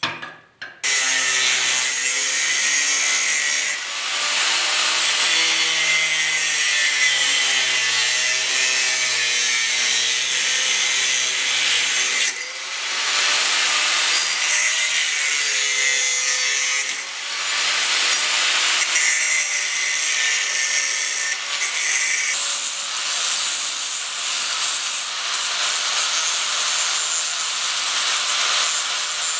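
Electric drill running and boring holes through a metal bracket, its motor whine wavering as the bit bites. The noise dips briefly a few times, as between holes or when the pressure eases.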